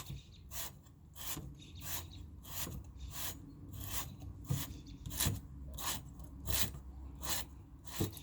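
Rhythmic scrubbing of the end of a copper pipe, about three scratchy strokes every two seconds, cleaning it to bare shiny metal so flux and solder will take.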